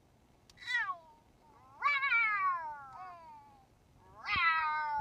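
Cat meowing: three drawn-out meows, each sliding down in pitch, the middle one the longest.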